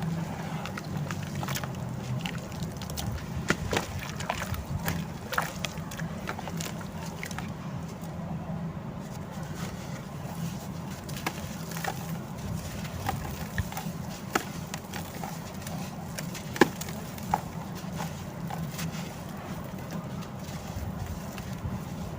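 Dried sand-cement clumps crumbling and breaking in the hands: irregular crackles and sharp snaps, some louder than others, over a steady low hum.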